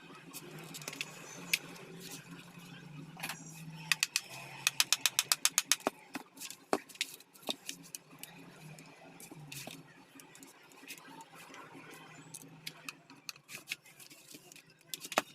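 Small metal parts and tools being handled on a workbench: scattered clicks and rattles, with a quick run of evenly spaced clicks, about seven a second, near the middle.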